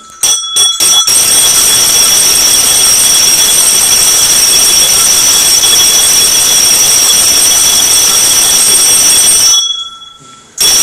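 Brass hand bell rung rapidly and without a break during an aarti, very loud and close, its several high ringing tones held steady. A few separate strokes open it, and it stops for about a second near the end before starting again.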